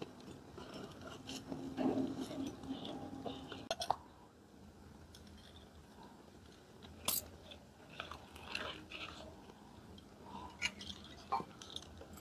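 Faint crinkling and rustling of fresh leaves being folded by hand around marinated chicken, with scattered short crisp crackles.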